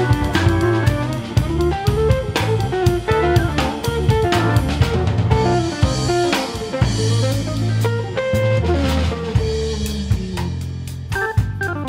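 Instrumental background music: electric guitar with Hammond organ, bass and a drum kit keeping a steady beat.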